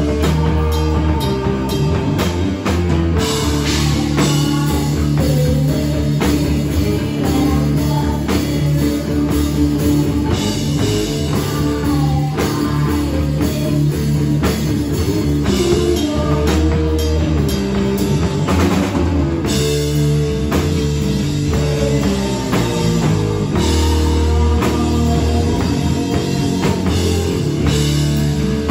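Live stoner rock band playing loud and steady: distorted electric guitar and bass over a drum kit with cymbals.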